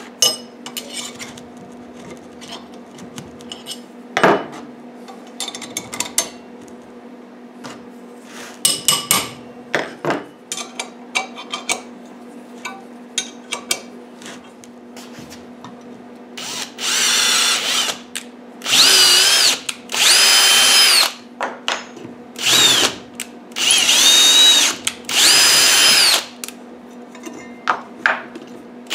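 Steel parts of a steady rest clinking and knocking as they are handled and tightened with a wrench. From about halfway in, a Kobalt 24-volt cordless drill runs in several short bursts of a second or two each, spinning up quickly at the start of each; these bursts are the loudest sounds.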